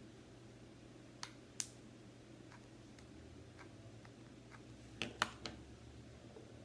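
A few sharp, light clicks and taps as a hot glue gun and rhinestone bling wrap are handled against a cylinder vase: two about a second in, then a quick cluster of three about five seconds in, with fainter ticks between.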